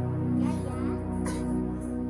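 Background music of long held chords.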